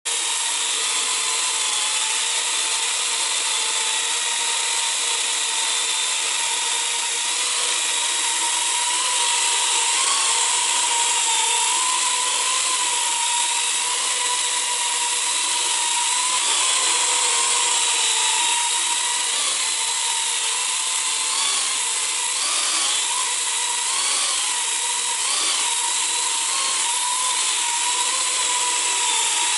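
Parrot AR.Drone quadcopter hovering, its four small electric rotors making a steady high whine. The pitch wavers up and down as the motors keep adjusting height and heading, more noticeably in the last third.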